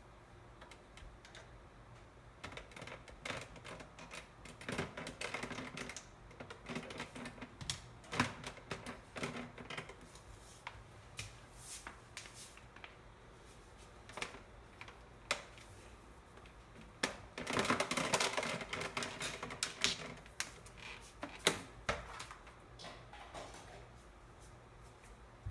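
Plastic parts of an electric fan being handled and fitted together during reassembly: irregular clicks, knocks and rattles, with a denser stretch of rattling about two-thirds of the way through.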